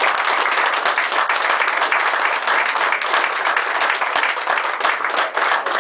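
An audience applauding: dense, steady hand clapping.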